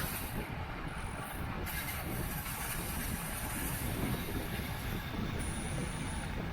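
Steady wind rush and rolling road noise from a racing road bicycle moving at speed.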